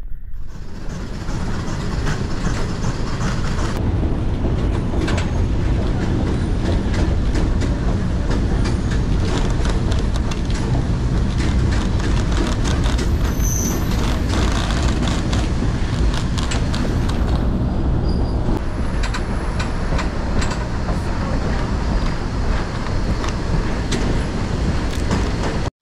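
Train running on the track: a steady rumble with frequent short clicks and knocks.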